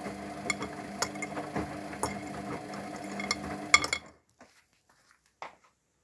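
Luxor WM 1042 front-loading washing machine tumbling a synthetics wash: a steady motor hum with water sloshing and regular clicks and knocks about twice a second. The sound cuts off suddenly about two-thirds through, leaving near silence with one faint knock.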